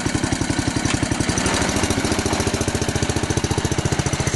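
Small single-cylinder garden-tractor engine running steadily in quick, even firing pulses, just restarted after its fuel had been shut off.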